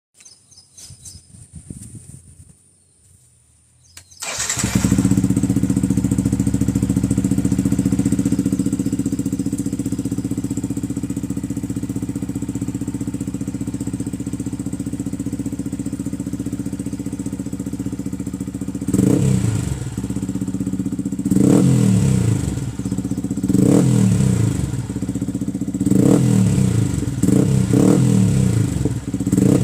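Yamaha R15's single-cylinder four-stroke engine through an aftermarket exhaust, starting about four seconds in and settling into a steady idle. Past the midpoint it is blipped with short throttle revs every couple of seconds, rising and falling, coming closer together near the end.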